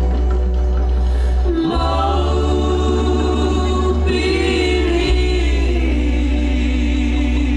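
A Polynesian song with several voices singing together over a steady deep bass; the voices come in a little under two seconds in, and higher voices join near the middle.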